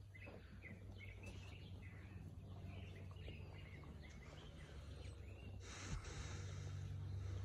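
Small birds chirping repeatedly and faintly over a low steady hum. About six seconds in there is a brief rustling hiss with a soft thump.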